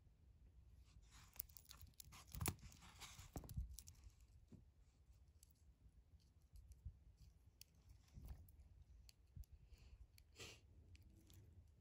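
Faint small clicks and scrapes of fingers handling a TAG Heuer Professional 200m's stainless-steel link bracelet and folding clasp. There is a run of clicks in the first few seconds, then a few single clicks later.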